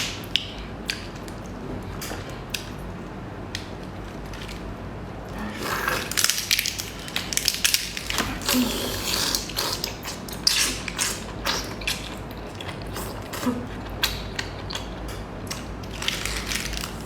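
Close-up eating sounds: chewing with many quick crackling clicks, denser from about five seconds in.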